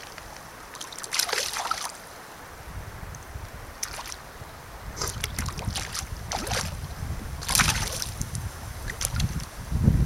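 Short splashes in the water, about six of them spread across the few seconds, as a hooked Arctic grayling is brought in. Wind rumbles on the microphone from about three seconds in.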